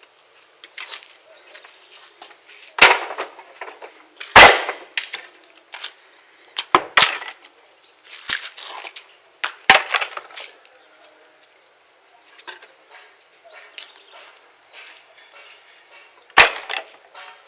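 Firewood knocking and cracking: about six loud, sharp wooden knocks at irregular intervals, the loudest about four and a half seconds in, with lighter clatter between them as wood is handled for a bonfire.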